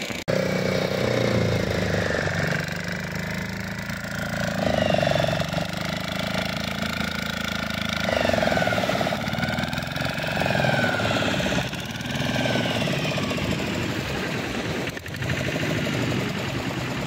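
Tractor diesel engine running steadily under load, driving a tractor-mounted winch that reels in the rope hauling a fishing boat up the beach.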